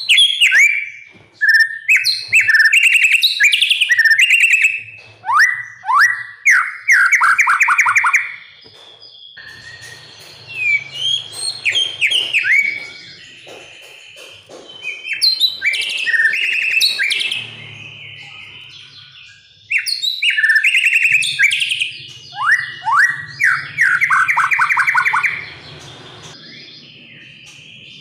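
White-rumped shama (murai batu) singing a loud, varied song: rapid trills, falling sweeps and repeated whistled notes in long phrases, with a quieter spell in the middle.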